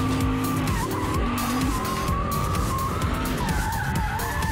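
Drift car sliding sideways, its rear tyres squealing in one long wavering screech over the engine running hard, with background music.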